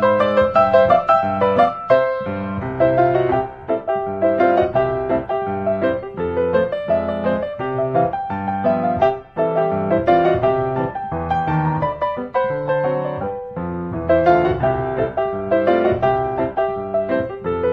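Background piano music with a melody over moving accompaniment, many notes a second.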